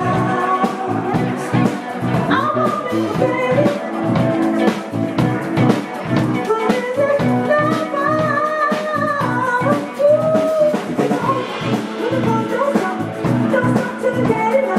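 Live band playing in a lounge: a woman singing into a microphone over drum kit, keyboard and guitar, with a steady beat.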